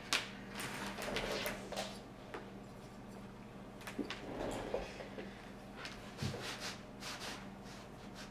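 Antenna wire being unwound by hand from a small unun board: irregular rustling of the cable with scattered light clicks and knocks as the wire and board are handled on the desk.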